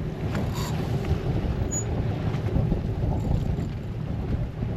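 Steady wind buffeting the microphone over a low rumble on an open boat at sea.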